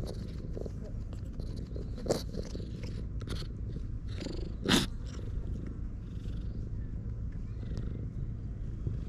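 Cat purring steadily while being stroked, a low even rumble close to the microphone, with a short louder noise about halfway through.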